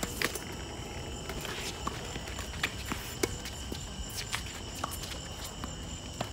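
A doubles tennis rally on a hard court: sharp pops of racquets hitting the ball every second or so, with shoes scuffing and squeaking on the court. A steady high chirr of night insects runs underneath.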